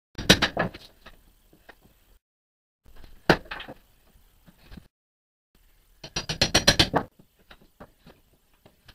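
Metal hand tools clinking and knocking on a wooden shipping crate while nails are worked out of it: a cluster of clinks at the start, one sharp strike about three seconds in, and a quick rattling run of clinks about six seconds in.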